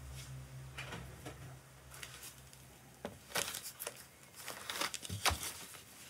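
Quiet rustling and a few light clicks, after a low steady hum that fades out over the first second or two.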